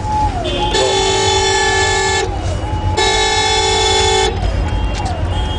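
A vehicle horn blown in two long blasts of about a second and a half each, over the low running of the car's engine and the street traffic. Fainter horn tones that slide in pitch sound between and after the blasts.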